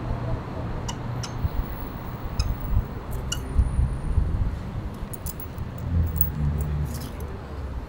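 Scattered light metallic clinks and ticks as steel crate-frame parts and hand tools are handled around a motorcycle's front wheel, over a steady low rumble.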